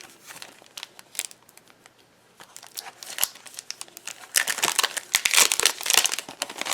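Paper or plastic packaging being handled and crinkled: sparse crackles at first, then dense, louder crinkling in the last couple of seconds.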